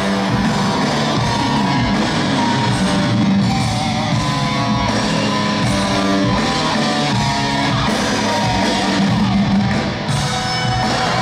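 Loud live rock music from a band playing in an arena, with a singer's voice over it, heard as a distant recording from the stands.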